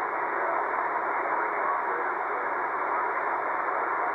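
Steady hiss of static from a shortwave receiver in single-sideband mode, squeezed into a narrow voice-band passband, with no clear voice coming through during a pause in the ham radio conversation.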